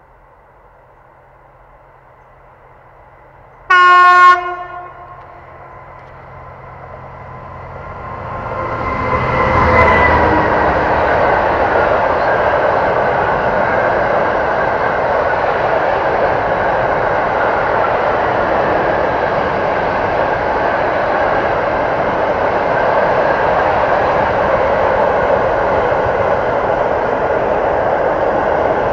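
A freight train on an electrified line sounds one short horn blast about four seconds in as it approaches. Its locomotive passes with a tone that falls in pitch at about ten seconds, and then a long rake of open freight wagons rolls by with a steady, loud rumble and wheel clatter.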